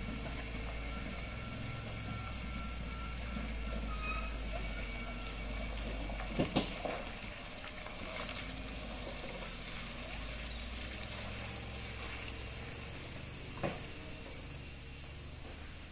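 Loaded lorry's diesel engine running low and steady as the truck crawls around a hairpin bend, easing slightly near the end as it pulls away. Two brief sharp sounds stand out, about six and a half and thirteen and a half seconds in.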